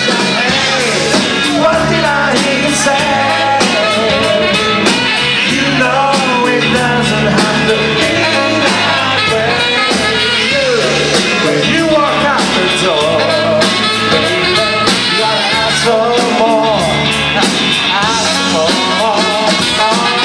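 A live rock band playing an 80s pop-rock song: electric guitar over a steady drum beat, with a male voice singing at times.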